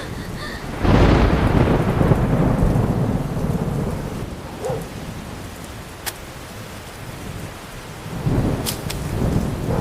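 Steady rain with thunder: a sudden clap about a second in that rumbles away over the next few seconds, and another rumble building near the end.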